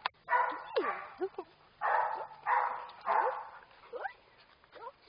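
Dogs barking, about four half-second barks, with short whines sliding up and down in pitch between them.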